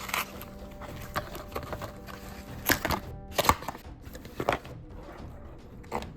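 Hard plastic action-figure parts clicking and knocking as the figure is handled, in several separate sharp clicks, over faint music.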